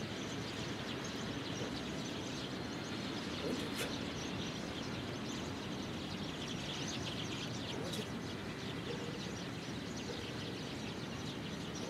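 Steady outdoor background noise with small birds chirping, and two or three faint clicks.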